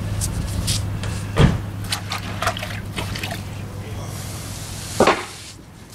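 Wet sponge wiping and scrubbing over bluestone pavers and fresh Portland cement joints in short wet strokes, cleaning the cement film off the stone face. Two louder knocks come at about a second and a half and near the end, over a low steady hum that fades out near the end.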